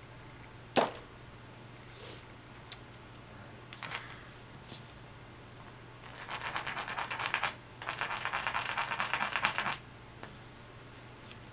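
A hard strike of stone on a flint core about a second in, a few light taps, then two spells of rapid scraping, stone rubbed quickly back and forth along the flint's edge.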